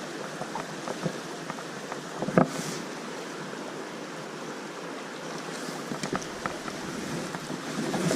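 Steady rush of flowing creek water, with a few small clicks and one sharper knock about two and a half seconds in.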